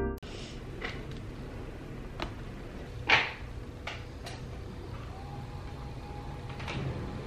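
Quiet room tone with a steady low hum, broken by a few light clicks and knocks of things being moved about a desk, the loudest about three seconds in.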